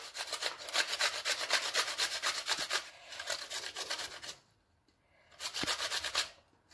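Raw unpeeled potato being grated on a stainless steel box grater: quick repeated rasping strokes, which stop for about a second past the middle and then start again briefly.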